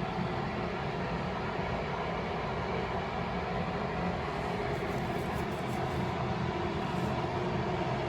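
A steady low rumbling noise with a faint hum in it, even in level.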